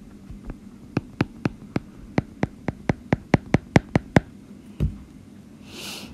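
Stylus tapping on a drawing tablet: a quick run of sharp clicks, about four a second and quickening slightly, as short strokes are drawn, stopping after about four seconds. A single duller thump follows about a second later.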